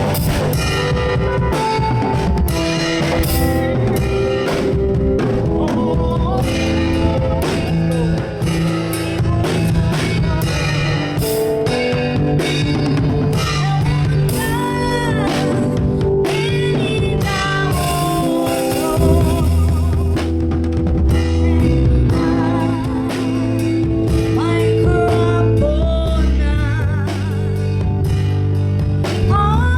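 A live band playing, with drum kit, guitar and bass under a singing voice.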